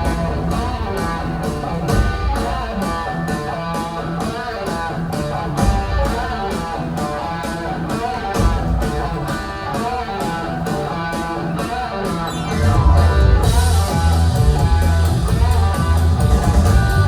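Background music led by guitar over a steady beat; a heavy bass line comes in about three quarters of the way through and the music grows louder.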